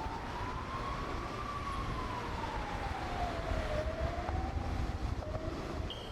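A siren wailing slowly, its single tone rising and falling over a heavy low rumble.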